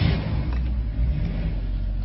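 Car engine just after starting: a brief surge as it catches, then a steady low idle.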